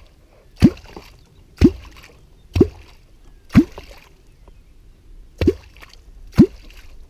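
Wooden catfish clonk struck into the water surface, each stroke a loud plop that rises in pitch. There are six strokes about a second apart, with a short pause after the fourth. This is the sound used to call wels catfish up to the bait.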